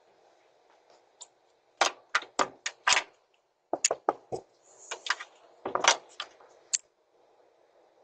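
A door being handled: irregular sharp knocks and clicks in quick clusters, over the steady hiss of a doorbell camera's microphone.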